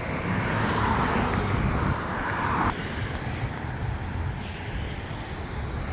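Road traffic: a passing vehicle's noise swells over the first two seconds and drops off sharply under three seconds in, leaving a steady low traffic rumble.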